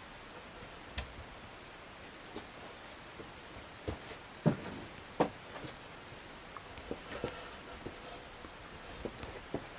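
1985 NuTone Verandah Deluxe ceiling fan running quietly at its lowest speed, with scattered faint clicks and knocks, the loudest two about halfway through.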